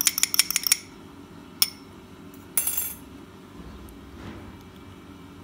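A fork rapidly beating an egg in a small cup, clicking against its sides, stops less than a second in. A single click follows, then a short scraping clatter about two and a half seconds in.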